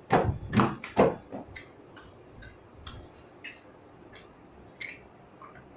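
Sharp clicks and knocks: a few loud ones in the first second, then fainter scattered ticks.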